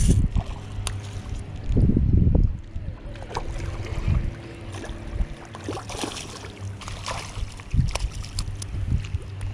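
Wind buffeting the microphone in low gusts while a hooked fish is reeled in, with splashing in the shallows near the end as the fish thrashes at the water's edge.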